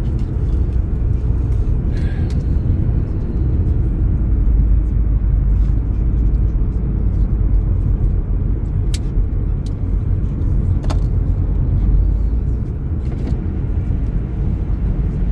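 Car being driven, heard from inside the cabin: a steady low rumble of road and engine noise, with a few light ticks.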